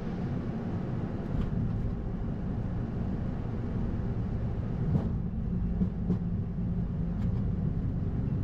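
Airbus A220-100 touching down and rolling out, heard from the cockpit: a steady low rumble of the wheels on the runway and the engines, with a few light knocks about halfway through.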